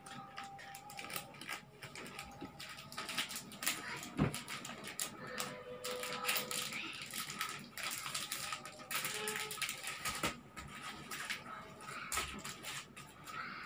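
Plastic-wrapped stationery packs and a plastic pencil case being handled and opened: irregular crinkling, rustling and small clicks and taps throughout.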